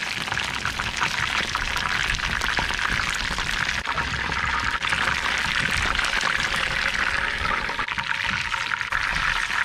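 Chicken wings frying in a pan of hot oil: a steady sizzle, full of fine crackles and spits.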